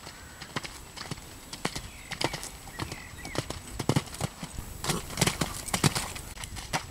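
Hoofbeats of a horse cantering on a wet sand arena: a quick, uneven run of hoof strikes that grows louder near the end as the horse jumps a vertical and canters past close by.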